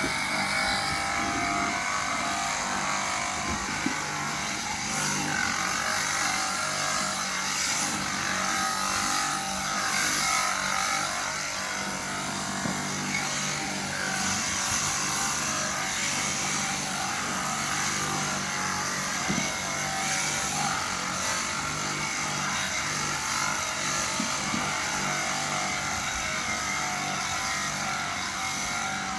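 Electric sheep shears running steadily while a sheep is shorn: a constant hum with a high buzzing hiss over it.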